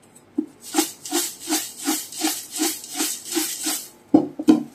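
Dry, crisp chivda (flattened rice, peanuts, makhana) rattling inside a steel container as it is shaken in an even rhythm, about ten shakes at roughly three a second, to coat the mix with powdered sugar and salt. Two louder knocks near the end.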